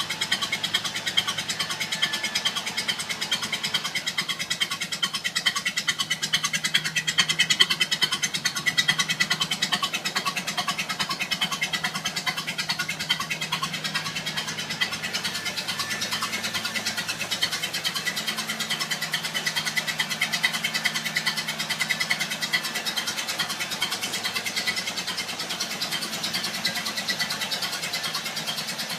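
Old car's engine running steadily with a rapid, even pulsing beat.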